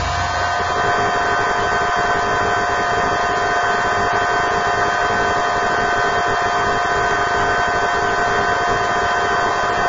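Steady hiss with a constant high hum under it, unchanging throughout.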